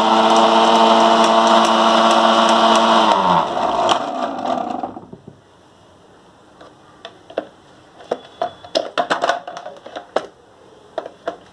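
Sewing-machine motor driving a homemade generator at full speed, a steady hum that is switched off about three seconds in and winds down in pitch to a stop. Then scattered clicks and knocks.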